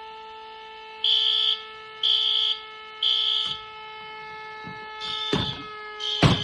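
Fire alarm sounders going off together: a high-pitched horn beeping in the temporal-three evacuation pattern (three half-second beeps, a pause, then three more) over a steady electronic alarm tone. Two sharp knocks come near the end, the second one loud.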